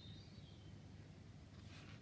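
Near silence: a low steady room hum, with a faint high bird chirp near the start and light rustling of plastic model parts being handled near the end.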